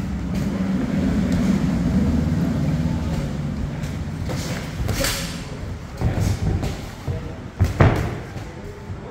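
Boxing gloves thumping as punches land during sparring: a few sharp hits in the second half, the loudest a quick pair near the end, over a murmur of gym background.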